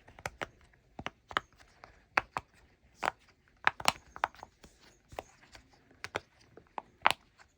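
Silicone pop-it fidget toy being pressed bubble by bubble: a string of short, sharp pops at an uneven pace, about two or three a second.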